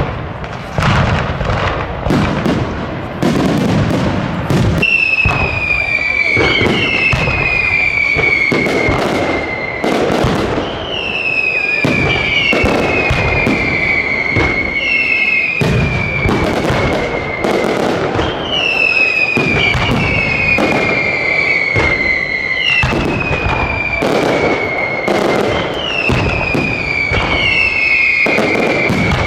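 Fireworks display: a dense run of bangs and crackling bursts. From about five seconds in, falling whistles repeat about every two seconds over the bangs.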